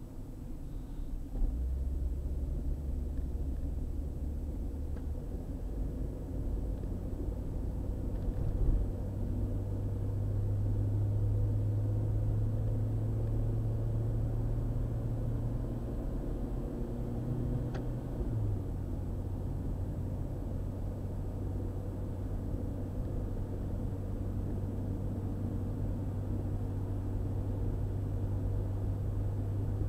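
Car driving on a highway: steady low engine and road rumble, with a deep hum that shifts pitch twice, about 8 and 18 seconds in, and a brief thump about 9 seconds in.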